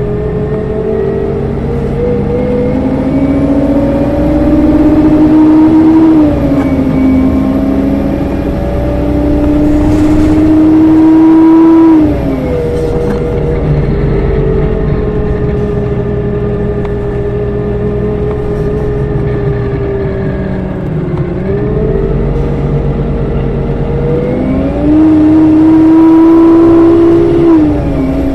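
Detroit Diesel Series 50G natural-gas engine of a NABI 40-LFW bus pulling through the gears with its Allison B400R automatic transmission. The engine note climbs and gets louder, drops back at an upshift about six seconds in, climbs again to a second shift about twelve seconds in, then holds a steady note. After a dip around twenty-one seconds it climbs again, loudest near the end, with another shift just before the end.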